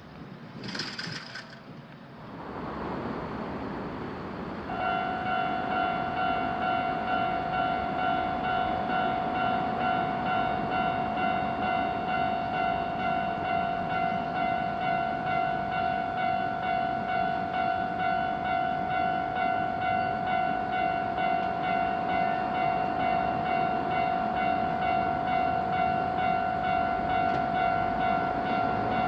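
Japanese railroad crossing's electronic warning bell starts about five seconds in and rings on in rapid, evenly repeated strokes of one clear pitched tone with overtones. Before it, a brief high sound about a second in and a rising rumble.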